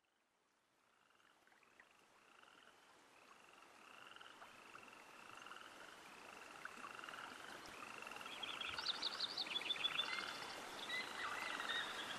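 Frogs croaking in a chorus of short repeated calls, fading in gradually; a higher, faster trilling joins about eight seconds in.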